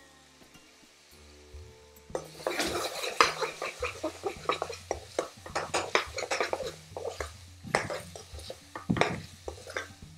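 Metal spoon stirring and scraping around an aluminium frying pan full of thick curry: a rapid, irregular clatter of knocks and scrapes that starts about two seconds in.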